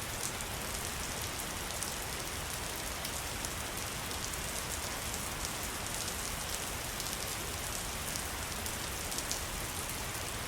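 Waterfall: a steady rush of falling water with fine splashing throughout.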